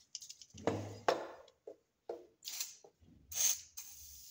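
Knocks and clatter of a metal aerosol can and steel pistol parts being handled, then a WD-40 aerosol can spraying with a steady hiss near the end, penetrating oil going onto a rusted pistol slide to loosen the rust.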